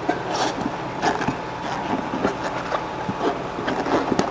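Handling noise: scattered light knocks, taps and rubbing as a dirt bike tire and inner tube are moved about on the bench, with a sharper knock near the end.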